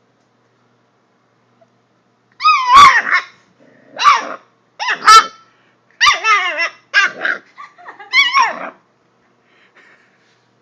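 Puppy barking and yipping in high-pitched bursts, about six in all, starting a couple of seconds in.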